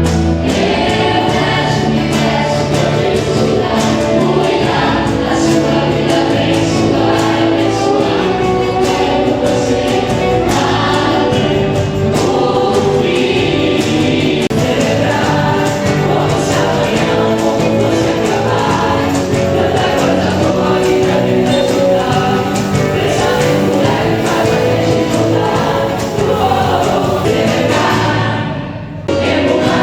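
A choir singing with musical accompaniment. The sound drops out briefly and abruptly near the end.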